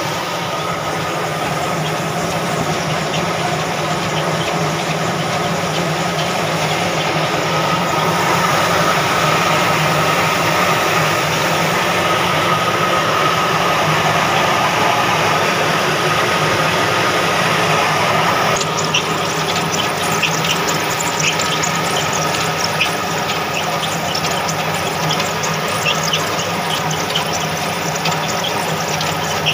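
An old diesel engine running steadily, driving a grain-cleaning machine, with a steady high whine. From about two-thirds of the way in, a dense rattle of quick ticks joins in.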